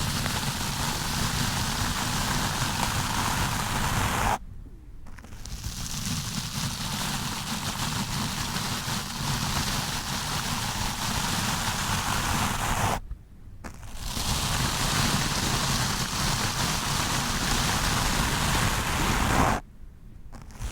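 Stiff-bristled wooden brush rubbed hard over a microphone: a dense, scratchy rustle that stops briefly three times, about four, thirteen and twenty seconds in.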